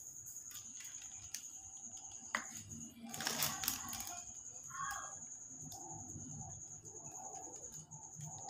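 Faint hand-handling of biscuit dough on a plastic sheet: a sharp tap a little over two seconds in, then a brief rustle of plastic about a second later as the scraps of dough around the cut rounds are pulled away. A steady high whine runs underneath.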